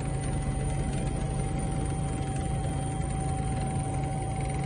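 Helicopter cabin noise: a loud, steady drone of engine and rotor with a thin constant whine above it.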